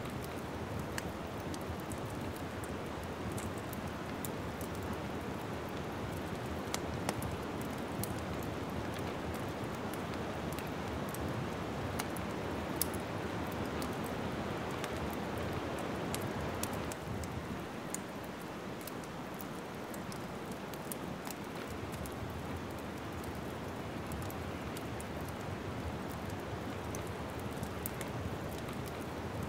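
Wood fire crackling in a fireplace: a steady rushing hiss with many scattered sharp pops and snaps. The hiss eases slightly about seventeen seconds in.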